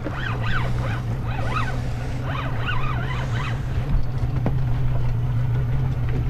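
Outboard motor running steadily at trolling speed, a low even hum, with wind and water noise on the microphone.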